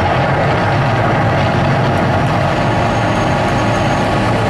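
Steady, loud rumbling roar of the Mirage volcano show near its end, while gas flames still burn at the base of the rock.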